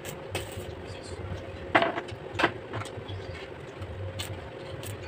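Steady machine hum from work on a steel tube-and-angle-bar frame, with two sharp metallic knocks about half a second apart a little under two seconds in.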